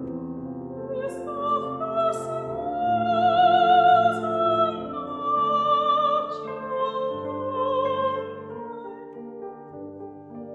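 A slow classical-style song performed live: a singer holding long notes with a strong vibrato over sustained accompanying chords.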